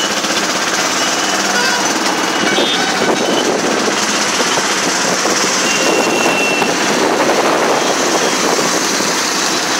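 Auto-rickshaw's small engine running steadily at cruising speed, heard from inside the open cabin, with a fast rattle and road and wind noise.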